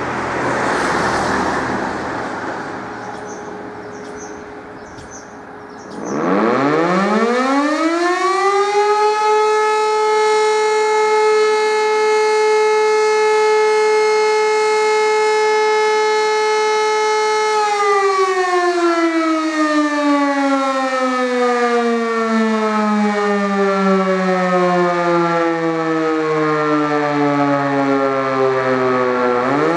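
E57 electromechanical siren spinning up about six seconds in to a steady wail, which it holds for about ten seconds. The pitch then slowly falls as the rotor winds down, and near the end it spins up again: the interrupted-tone pattern of the German 'Feueralarm' fire-alarm signal, sounded as a test. Before the siren starts, a rushing noise fades away.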